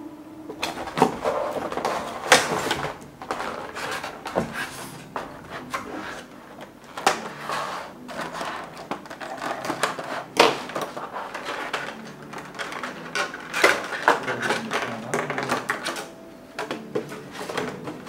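Cardboard box and clear plastic packaging being handled and opened: crinkling plastic and cardboard with many irregular sharp clicks and knocks as a die-cast metal model truck is taken out.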